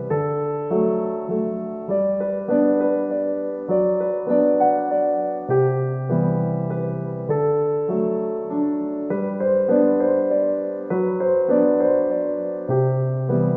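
Background music: a gentle electric piano playing sustained chords over a slowly changing bass, new notes struck every half second or so.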